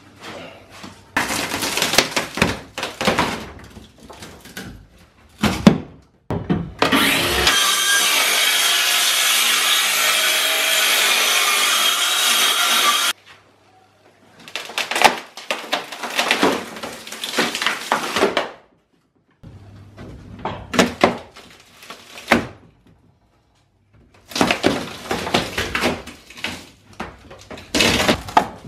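Rotten plywood decking being prised and torn out of a fibreglass boat hull: bursts of cracking, splintering and scraping as soggy, rotted boards break up and drag against the hull. In the middle there is a steady, loud, even noise of about six seconds that starts and stops abruptly.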